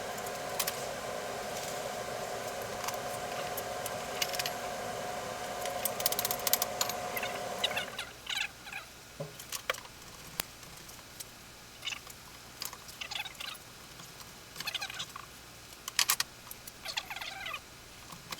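A steady hum with a faint whine runs and then cuts off about eight seconds in; after that, small metal parts of patio umbrella hardware click, tap and rattle as they are handled.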